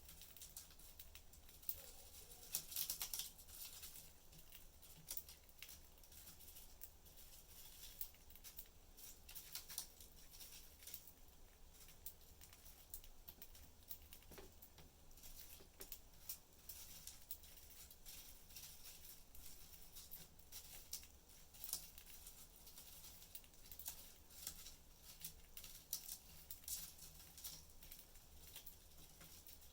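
Faint, irregular clicking and scratching from pet budgies moving and pecking about their cage, with no chirps, over a low steady hum.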